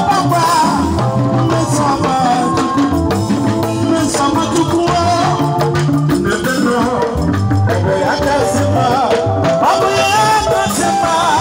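Live band playing upbeat music: electric guitars and bass over a drum kit and congas, with a shaker rattling along to the beat.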